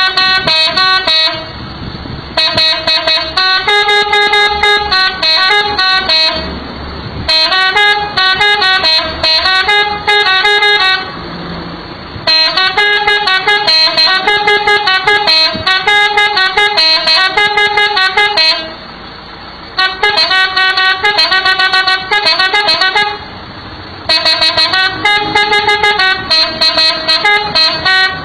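Three-trumpet telolet air horn driven by an 11-tune electronic module, playing quick melodies of short stepped notes. The melodies come in phrases of a few seconds, with about five brief pauses between them.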